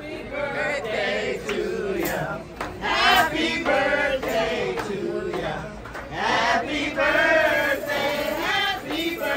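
A group of voices chanting together loudly, in drawn-out notes that waver in pitch.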